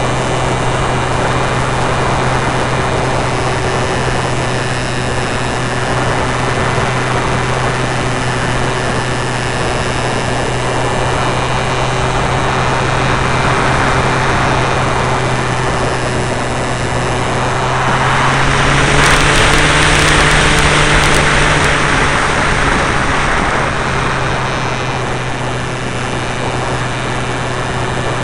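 Onboard sound of a radio-controlled model plane in flight: the motor and propeller running with a steady hum under the rush of air past the camera. About 18 seconds in, the hum rises a little in pitch and the rush swells, easing back a few seconds later.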